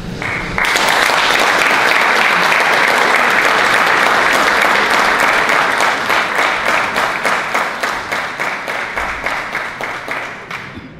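Audience applauding. It starts about half a second in, then thins into separate claps and fades near the end.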